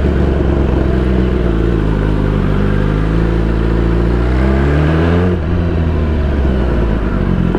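Inline-four sport motorcycle engine under way at low speed, its revs climbing steadily for about five seconds, then dropping suddenly and running on at lower revs.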